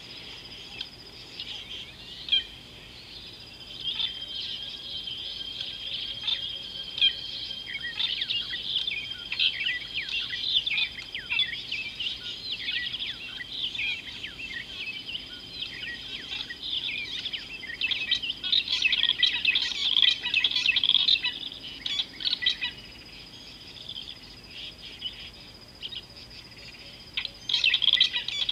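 A chorus of many wild birds chirping and twittering, busiest about two-thirds of the way through and again near the end, over a steady high-pitched tone.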